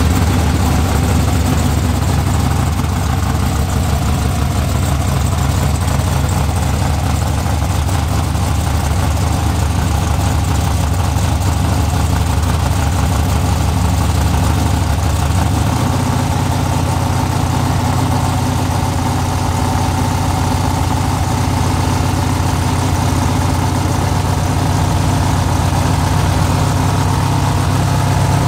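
Drag-race car engine idling loudly and steadily, its note stepping up slightly about halfway through.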